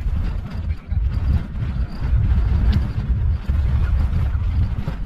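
Low rumble of a vehicle driving along an unpaved street, heard from inside, with uneven wind buffeting on the microphone.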